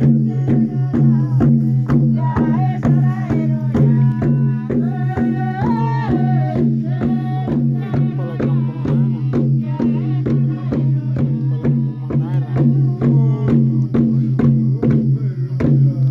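Music of tifa hand drums beating steadily, about three beats a second, over a constant low drone, with voices singing a wavering melody on top.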